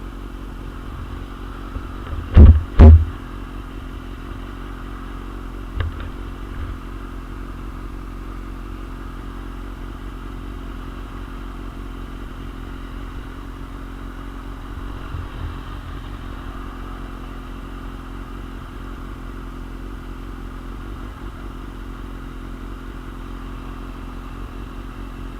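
2001 Suzuki GSX-R750's inline-four engine running at a steady, even pitch, with wind noise on the microphone. Two very loud thumps come about two and a half seconds in, half a second apart, and a smaller one a few seconds later.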